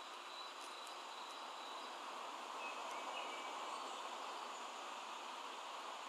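Steady background noise of a city street at dusk heard through an open window, with a faint thin high tone and a few faint high chirps about three seconds in, the kind of bird calls the recording is about.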